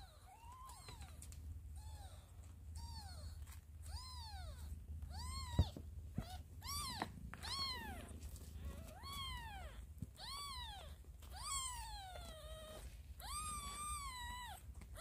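Newborn kittens mewing while nursing: a string of short, high cries, each rising then falling in pitch, about a dozen, coming faster and louder after the first few seconds. A low steady rumble runs underneath, and a sharp click comes about halfway through.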